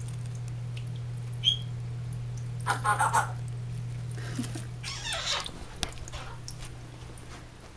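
A steady low hum, with a short high chirp about a second and a half in and a brief animal call about three seconds in, then a rustle as things are handled.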